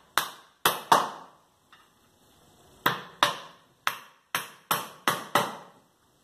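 Hammer driving 15×15 nails into a pallet-wood side board: about ten sharp blows, three quick ones, a pause of nearly two seconds, then seven more in a steady run.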